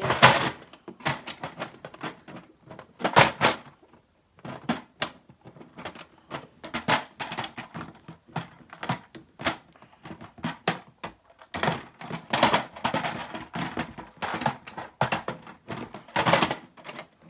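Plastic parts of a foot spa being handled and fitted together: irregular knocks, clicks and clunks.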